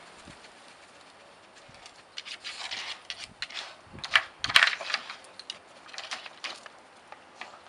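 Nina Ottosson Dog Turbo wooden puzzle toy knocking and scraping as a dog paws and noses its sliding wooden discs: an uneven run of clicks and rubs that starts about two seconds in, with the loudest knocks a little past the middle.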